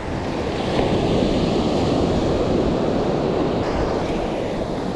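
Wind buffeting the microphone over waves washing in: a steady rushing noise, heaviest in the low range, that swells slightly about a second in.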